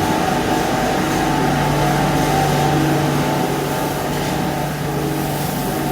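Machinery running steadily, a constant hum with a steady low tone and several higher tones over a noisy background.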